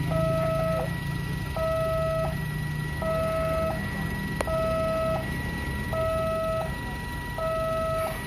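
Railway level-crossing warning alarm, an electronic two-tone chime repeating about every second and a quarter. It keeps sounding after the train has already passed, which is said to be usual at this crossing because it is controlled from the station.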